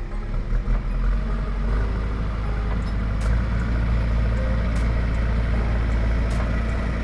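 Diesel engine of a JCB backhoe loader, a Kirloskar engine, running steadily with a deep, low drone. A few faint ticks come about every second and a half.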